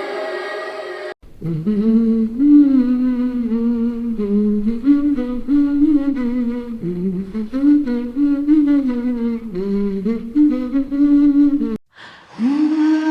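AI-generated humming: a single voice hums a slow, wandering melody that starts abruptly about a second in and cuts off sharply near the end. A moment later another hummed phrase starts.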